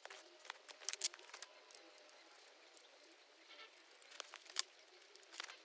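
Handling noise of chainsaws being lifted and moved on a log: scattered sharp clicks and knocks, a cluster of them about a second in and a few more after four seconds.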